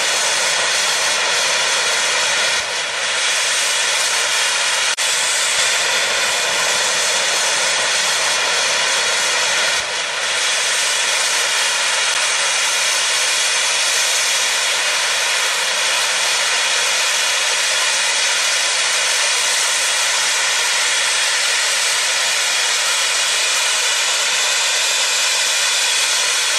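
Steam locomotive blowing off steam through its safety valves: a loud, steady, roaring hiss that hardly varies.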